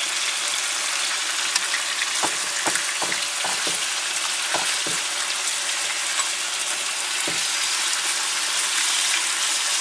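Chunks of deer meat sizzling as they sear in hot oil in a large frying pan, with a few light knocks scattered through.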